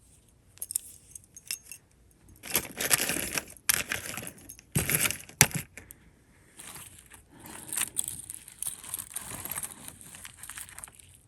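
Costume jewelry clinking and jangling as a tangled necklace is handled and pulled apart, with scattered sharp clicks and a few louder rustling bursts.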